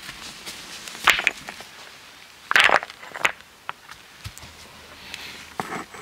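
Footsteps in boots on dry leaves and grass over soft earth: a few separate rustling steps, the loudest about two and a half seconds in.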